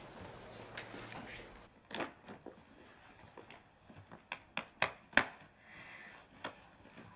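Faint room tone, then a scatter of about ten sharp, light clicks and taps, the loudest a little after halfway, as small objects are handled at an office desk.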